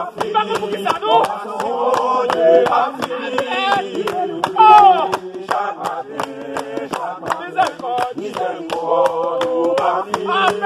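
A group of people singing and chanting together in worship, with steady rhythmic hand-clapping.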